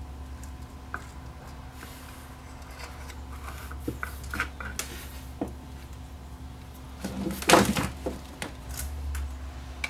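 Small clicks of pliers and handling on a metal AA5 radio chassis, then about seven seconds in a louder clatter as the chassis is turned over and set down on the bench. A steady low hum runs underneath.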